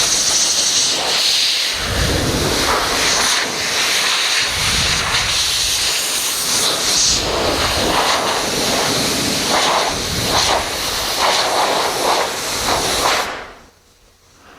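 Cloth rubbing briskly over a wood surface, working in an oil finish: a loud, steady hissing scrub with swells from stroke to stroke, stopping abruptly near the end.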